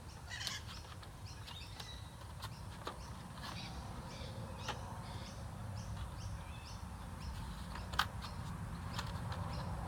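Birds chirping in short, irregular calls, with a few sharp clicks, the loudest about eight seconds in, over a steady low rumble.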